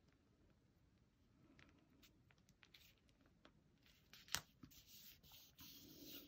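Near silence with faint rustling of cardstock as a stamped paper panel is pressed and smoothed down onto a gold cardstock mat, with one sharp click about four seconds in.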